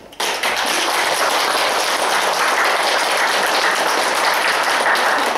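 Applause from an audience, with the children clapping too, breaking out suddenly just after the start and holding steady and loud.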